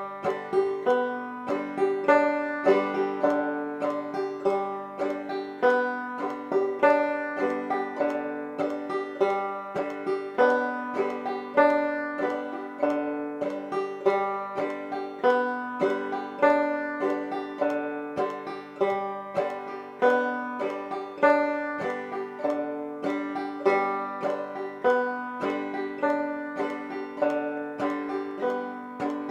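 Five-string banjo played clawhammer style: the basic frailing strum repeated on open strings at a fast, steady tempo as a speed exercise, a continuous run of evenly spaced plucked and brushed notes.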